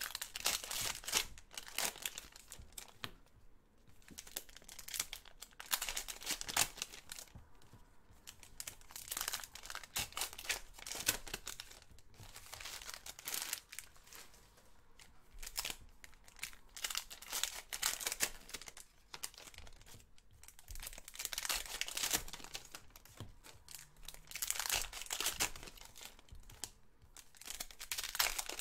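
Trading-card pack wrappers crinkling and tearing as packs are ripped open one after another, in repeated bursts a second or two long every few seconds.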